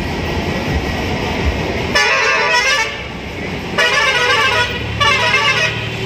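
Bus horn sounding three times, each blast about a second long with a shifting pitch, over the steady low rumble of a bus engine and street traffic.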